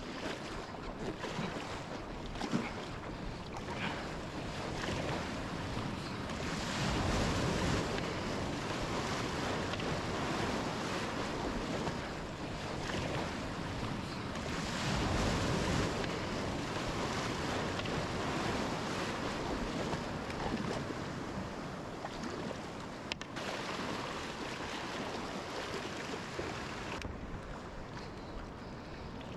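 Surf breaking and water rushing along a fishing kayak as it is paddled in through the waves, with paddle splashes and wind on the microphone. The wash swells twice, about a quarter and halfway through, and eases near the end.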